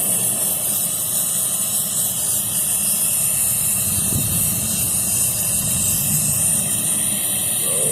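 Brazing torch flame hissing steadily with a low rumble as it heats a filter dryer joint on a refrigerant line while the brazing alloy flows.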